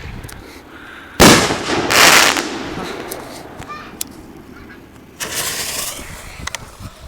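Fireworks going off: a loud bang about a second in, a second burst close behind it fading slowly, then a shorter hissing burst about five seconds in.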